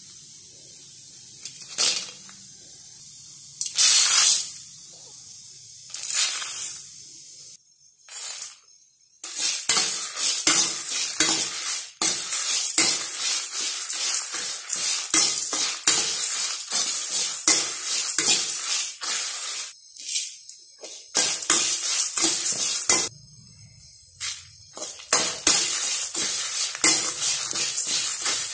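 Steel ladle stirring and scraping dry coriander seeds, chana dal and dried red chillies around a metal kadai as they dry-roast: a dense run of scrapes and rattling seeds from about nine seconds in, with short pauses. Before that, a steady hiss with three louder rushes.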